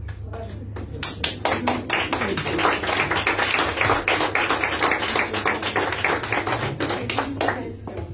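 A small audience applauding. The clapping starts about a second in, builds, and dies away near the end.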